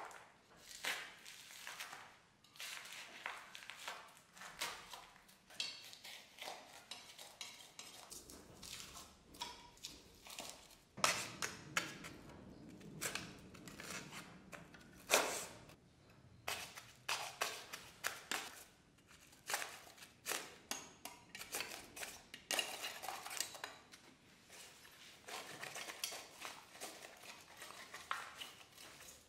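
A small metal tool picking and scraping polystyrene foam out of a cast concrete stove: irregular clicks and scrapes of metal on concrete and on the steel grate bars, with a denser stretch of scraping around the middle.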